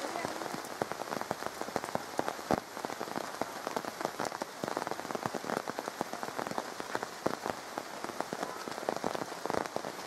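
Steady rain, with many drops striking nearby surfaces as dense, irregular sharp ticks.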